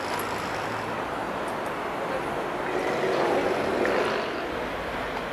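Steady outdoor city background noise with a hum of distant traffic.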